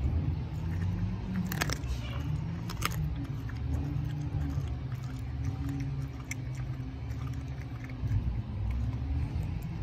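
German shepherd chewing a raw bone-in chicken thigh: wet gnawing with sharp bone crunches, the loudest about a second and a half in and again near three seconds. Beneath it runs a steady low rumble with a hum.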